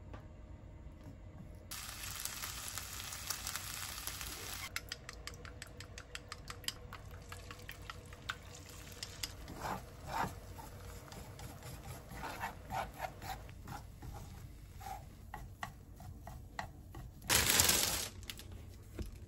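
Frying pan sizzling and crackling as sliced ham and then beaten egg cook in hot oil, with a steady hiss at first giving way to quick crackles. Near the end comes a brief, loud rustle of a plastic bag as a loaf of sourdough bread is taken out of it.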